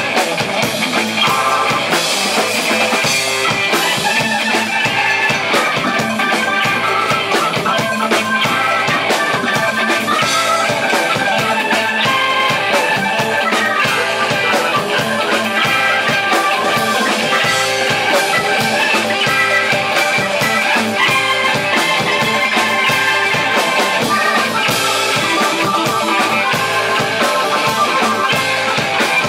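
Live band playing an instrumental mod-jazz groove: organ from Hammond XK-3 and Nord Electro 3 keyboards, electric bass, electric guitar and drum kit.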